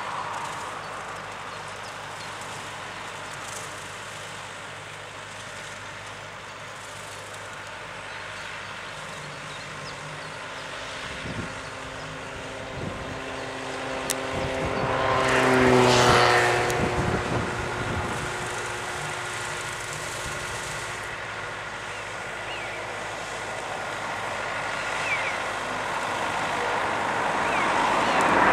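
Renault Ceres tractor's diesel engine running steadily as it drives a topper mower through rushes. It grows louder about halfway through as the tractor turns toward the listener, with the engine note dropping at its loudest, then rises again near the end as the tractor comes past.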